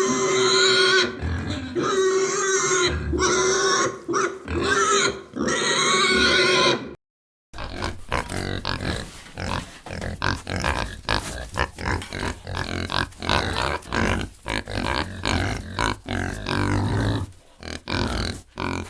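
Pigs squealing, a string of long high-pitched squeals for about seven seconds. After a brief break, a group of pigs grunting in quick, short, agitated bursts.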